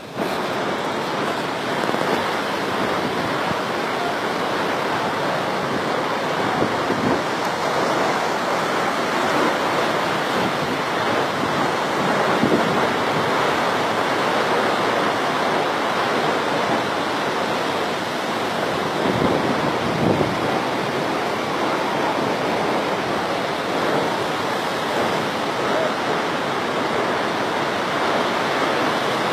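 Waterfall: a steady rush of falling water that holds the same level throughout.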